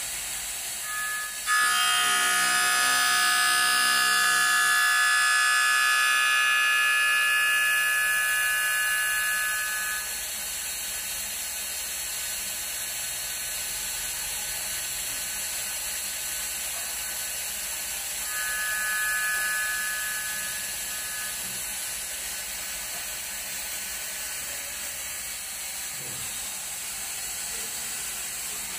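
Profile grinding machine's wheel grinding the tip of a moulding profile cutter under coolant jets: a steady high whine, loudest over the first ten seconds and again briefly about two-thirds of the way through, over a constant spray hiss.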